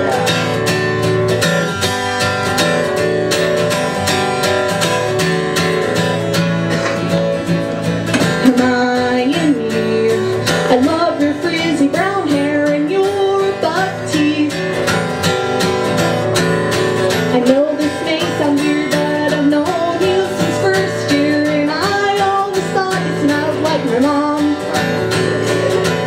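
Acoustic guitar strummed steadily, with a woman singing over it from about eight seconds in.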